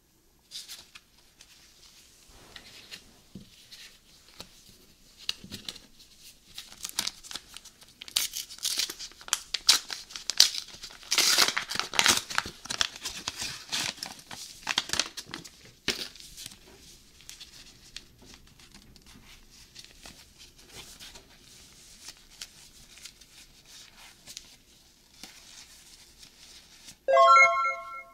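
Paper card-pack wrapper of a McDonald's Pokémon trading card pack being torn open and crinkled by gloved hands, the tearing densest and loudest through the middle. Near the end comes a short, loud pitched tone about a second long.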